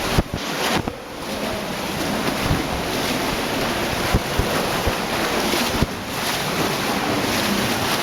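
Steady rush of a cave stream in near flood, with the splash of legs wading deep against the current and a few short knocks.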